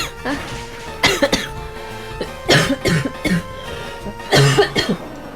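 A young woman coughing in four bouts, the third and fourth with several coughs in quick succession. The coughs come from a cold.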